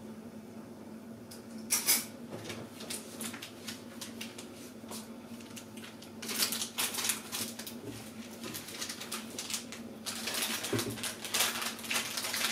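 Plastic sachet of curry powder crinkling and crackling as it is handled, in bursts: a sharp crackle about two seconds in, then longer spells of crackling in the middle and near the end. A low steady hum runs underneath.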